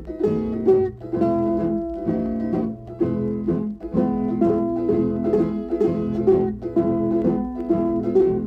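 Instrumental music from a plucked string ensemble, a quick run of picked notes in a steady rhythm.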